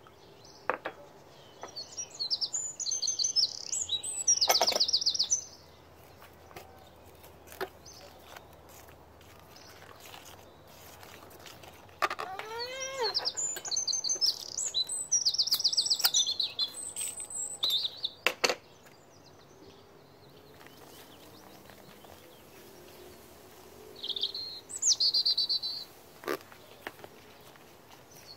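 A songbird singing in three spells of fast, high chirps and trills, with one swooping call in the middle spell. A few sharp taps or clicks come in between.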